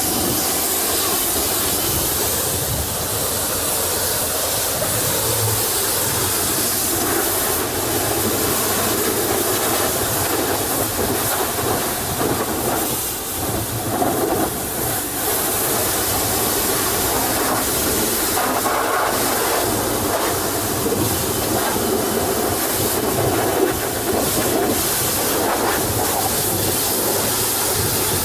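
High-pressure washer jet spraying water onto a truck's wheels and chassis: a loud, steady hiss of spray and splashing that shifts a little as the jet moves.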